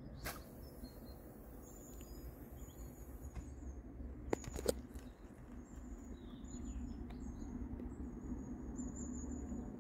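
A carp rod being cast: a sharp swish just after the start, then a high hiss of line running off the reel that fades over about three seconds, and two quick clicks about four and a half seconds in. Small birds chirp throughout over a low outdoor rumble.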